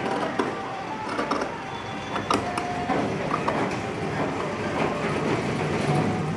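Large tailor's shears cutting through layered fabric on a cutting table: repeated snips with the blade sliding along the tabletop, over steady background noise.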